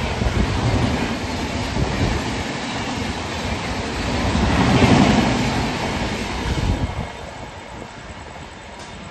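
Sealdah Rajdhani Express coaches passing at speed, wheels running on the rails, loudest about five seconds in, then the sound falls away suddenly about seven seconds in as the train clears.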